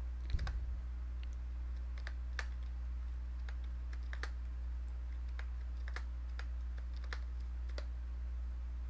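Computer keyboard being typed on in slow, irregular single keystrokes, over a steady low hum.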